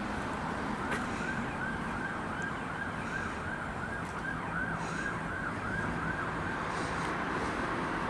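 Emergency vehicle siren in fast yelp, rising and falling about three times a second over steady road traffic noise; it starts about a second in and fades near the end.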